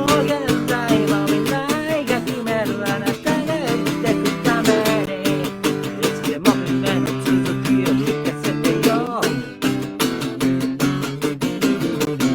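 Acoustic guitar strummed in a steady rhythm while a voice sings over it; the singing stops about nine seconds in and the guitar carries on alone.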